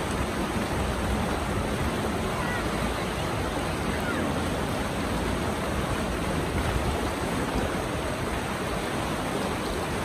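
Pacora River rapids pouring over and between boulders in a small white-water chute: a steady, unbroken rush of water.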